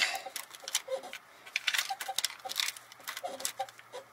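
Timing chain and chain guide of a Toyota 5.7 V8 clinking and rattling as the guide is worked and slid into place by hand: a quick irregular run of light metallic clicks and jingles.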